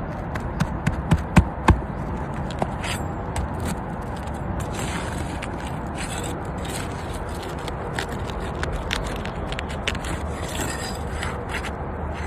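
A hand tool scraping and prying under asphalt shingles to break the sealant bond and remove a shingle, with a quick run of sharp knocks about a second in, then scattered clicks and scraping.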